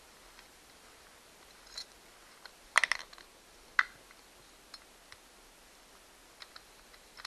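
A few light metallic clicks and taps from a nut and washer on a bolt fitted as a makeshift battery terminal post, handled and turned by fingers; the sharpest come about three and four seconds in.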